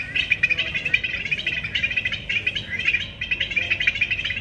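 Many small birds chirping rapidly and without pause, a dense chorus of short overlapping chirps.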